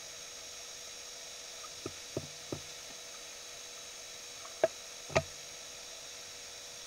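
Steady electrical hum and hiss, with three faint short knocks about two seconds in and two sharper, louder clicks about five seconds in.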